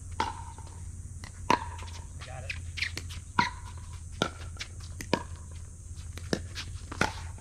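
Pickleball rally: paddles striking a hard plastic pickleball back and forth, a sharp pock about every second, several with a short hollow ring.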